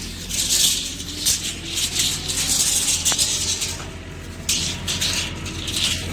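Concrete truck and pump equipment running: a steady low diesel hum under repeated gritty, rattling hisses that come roughly once a second.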